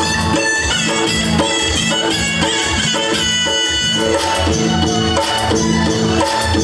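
Instrumental passage of a Nepali lok (folk) song: a melody instrument plays over percussion keeping a steady rhythm, with little or no singing.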